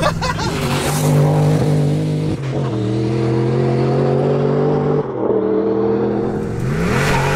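Turbocharged 1UZ-FE V8 of a Lexus LS400 drift car pulling hard under full load. The engine note breaks twice, at about two and a half and five seconds in, as it shifts up, then climbs again near the end.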